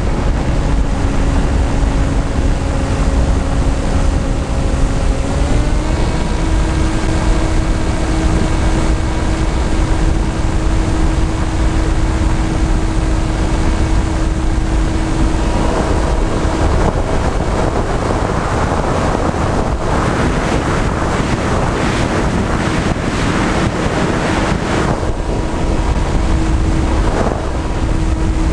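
Electric motors and propellers of a camera drone humming steadily, heard from on board, the pitch stepping up slightly about five seconds in. Heavy wind buffets the microphone, gustier in the second half.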